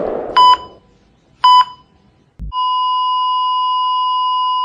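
The tail of a gunshot fades out. Then an electronic heart monitor gives two short beeps about a second apart, followed by a long unbroken flatline tone at the same pitch from about two and a half seconds in. The flatline marks the shot youth's death.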